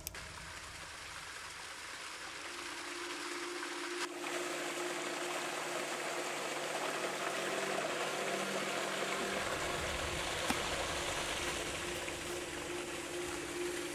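Water of a shallow rocky creek flowing and rushing steadily, with a steady low sustained tone under it from a few seconds in. There are short clicks about four seconds in and again near ten seconds.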